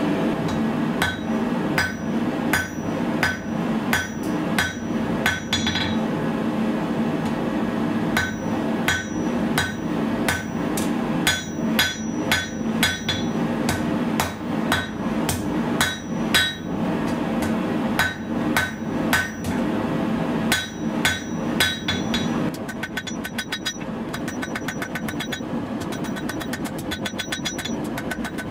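Hand hammer striking red-hot 1095 high-carbon steel on an anvil while forging a knife tang: sharp, ringing blows about one and a half a second, with a short pause about six seconds in. From a little past twenty seconds the blows turn into a fast, even run of lighter strikes.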